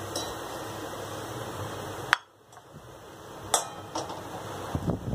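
Hot oil sizzling in a steel kadhai of frying onion pakoras while they are lifted out with a slotted spoon. About two seconds in, the sound cuts off abruptly and then slowly comes back. Near the end the metal spoon clinks against the steel wok a few times.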